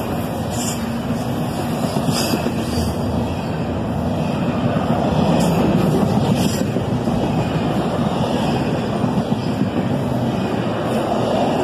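Intermodal freight cars rolling past at speed: a steady rumble of steel wheels on the rail, with a few sharp clicks scattered through.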